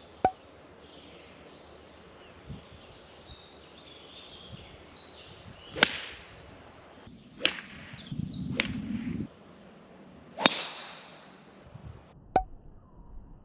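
Golf clubs striking balls: about six sharp cracks spread a second or more apart, the loudest two about six and ten and a half seconds in. Faint bird chirps run through the first half.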